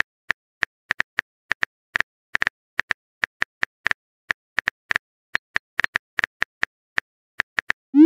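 Phone keyboard typing sound effect: a run of short, sharp clicks at about four a second, unevenly spaced.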